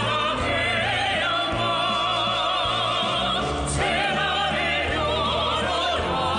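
A song sung in a full operatic style with wide vibrato over orchestral accompaniment.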